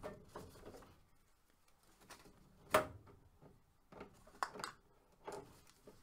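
Scattered clicks and handling noise from needle-nose pliers squeezing hose clamp rings and tubes being pulled off a furnace condensate trap. The sharpest click comes a little under three seconds in, with a few smaller ones later.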